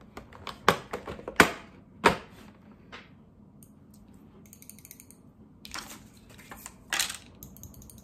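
Sharp plastic clicks and snaps as tweezers are pried out of a clear plastic blister tray of tools: several in the first two seconds, a quieter stretch, then a few more near the end.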